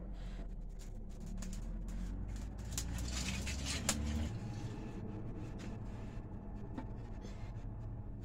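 Dry firewood sticks rustling and scraping as they are pushed into a small wood fire on a mud hearth, with scattered clicks and a sharp knock about four seconds in.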